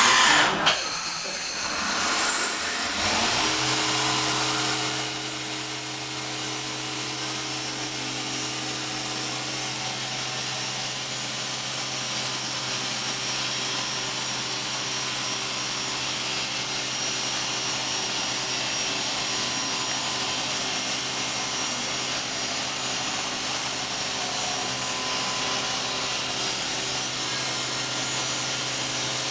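Fadal VMC-6030 CNC vertical machining centre running with its table moving and no cutting: a steady machine hum with a hiss. A louder, noisier sound in the first half second cuts off suddenly, and the hum settles to a steady pitch about three seconds in.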